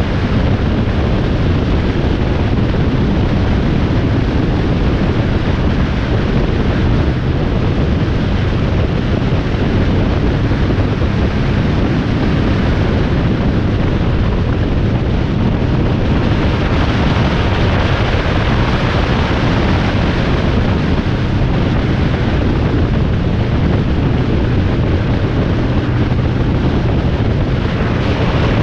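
Loud, steady wind rush and road noise of a vehicle travelling at highway speed, with wind blowing across the microphone.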